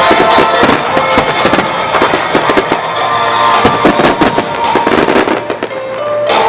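Starmine fireworks barrage: a rapid, dense run of shell bursts and crackling that thins out near the end, over music played for the show.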